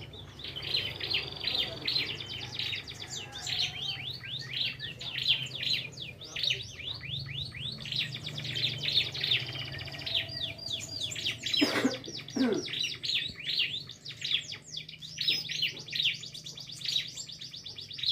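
Prinia (prenjak) song: a fast, dense run of sharp repeated chirps, over a steady low hum, with two brief downward-sliding squeaks about twelve seconds in.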